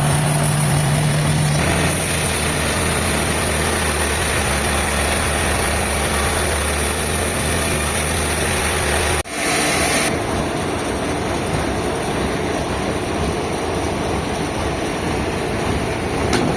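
Sawmill machinery running steadily: an engine-like low hum under a wide hiss. The sound drops out sharply about nine seconds in and comes back slightly different.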